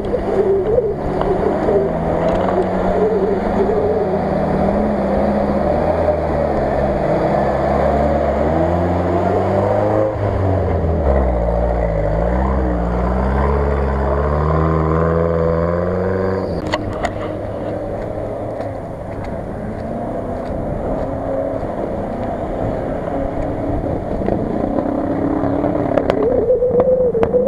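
Off-road 4x4 engines revving hard under load through water and mud, the pitch rising and falling as the throttle is worked. About two-thirds in a sharp click is heard, the engine sound drops back, and another engine revs up near the end.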